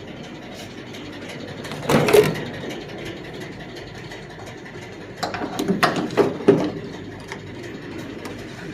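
Clattering mechanical clicks over a steady hum: one short burst about two seconds in and a longer run of sharp clicks from about five to six and a half seconds.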